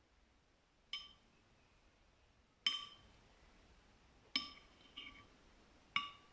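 Glass clinking: five sharp clinks, each ringing briefly, irregularly spaced, with two close together past the middle.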